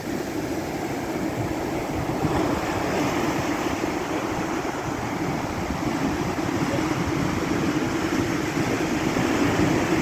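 Heavy ocean surf breaking on the shore: a steady, even rush of waves and churning foam.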